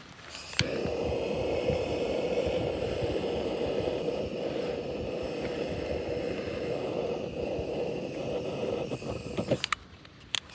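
Homemade waste-oil burner running: a steady rushing sound with a hum, starting with a click about half a second in and cutting off near the end.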